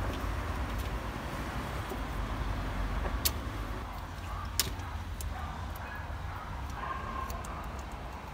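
Electrical tape being unrolled and wrapped by hand around car wiring, with light handling noise of the wires and two sharp clicks, about three seconds in and again a second or so later, over a steady low rumble.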